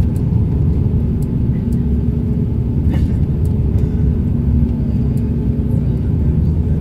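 Steady low rumble of an Airbus A340-300's four CFM56-5C4 turbofans and the rushing air, heard inside the cabin shortly after takeoff.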